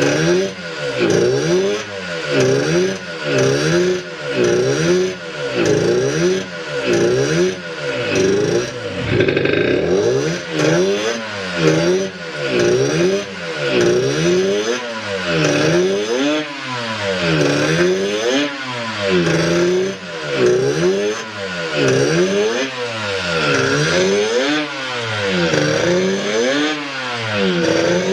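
Suzuki RG250 Gamma two-stroke parallel-twin engine being revved repeatedly, its pitch rising and falling about once a second. Its condition is given as no abnormal noises.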